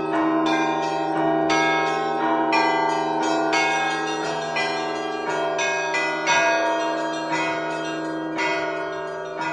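Russian Orthodox church bells rung in a festive peal for Holy Trinity: smaller bells struck in a quick rhythm about twice a second over the steady hum of larger bells ringing on.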